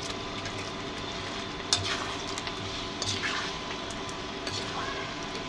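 A perforated metal spatula stirring pieces of soya chaap through thick, simmering masala gravy in a kadhai, over a steady sizzle. A few sharper clinks and scrapes of metal against the pan come about two, three and four and a half seconds in.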